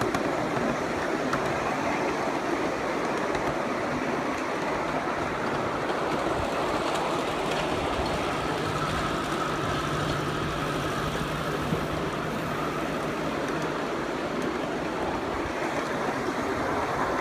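A 1-inch-scale ride-on miniature railway train running along its track: the steady rumble and rattle of its wheels on the rails, with a faint steady hum joining in the middle.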